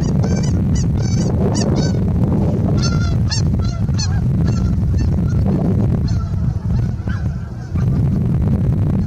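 White domestic goose cackling: a rapid series of short, high honks, two to three a second, thinning out and growing fainter after about five seconds, over a steady low rumble.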